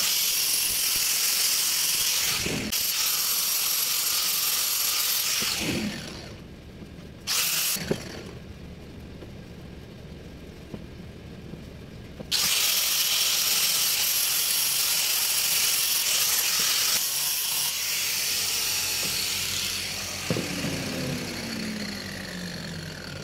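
Handheld angle grinder fitted with a sanding disc running at full speed with a loud, even whirring hiss. It cuts out about six seconds in, runs again briefly, then starts up again sharply about twelve seconds in. Near the end the motor winds down with a falling pitch.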